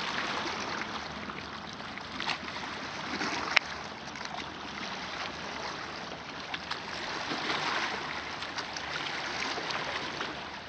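Small waves lapping against a rocky lakeshore: a steady, uneven splashing hiss, with a few short clicks, the sharpest about three and a half seconds in.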